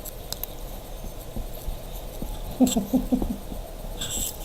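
A dog making a quick run of about five short grunts about two and a half seconds in, followed near the end by a brief hiss.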